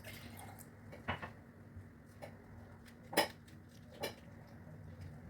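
A handful of sharp, separate clinks and taps of spoons and kitchenware, the loudest a little past three seconds in, over a faint steady low hum.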